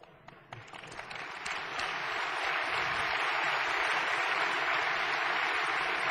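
Audience applauding: a few scattered claps at first, building within about two seconds into steady applause.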